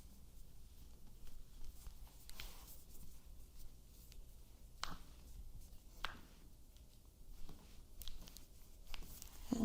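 Hands working a bare foot and toes during a chiropractic foot adjustment: quiet rubbing and handling, with a few faint sharp clicks spread through and a louder click near the end.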